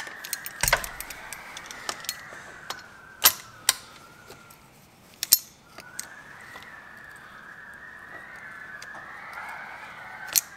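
Sharp metal clinks and clicks of pliers knocking against a steel steering-cylinder end held in a vise, a handful of them spread out, over birds calling continuously in the background.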